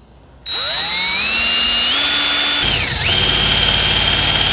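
Cordless drill spinning a 5/8-inch spade bit into a wooden board. The motor starts about half a second in and winds up in pitch. About two seconds later the bit bites into the wood with a low rough chatter, the motor dips briefly under the load, then runs steady while cutting.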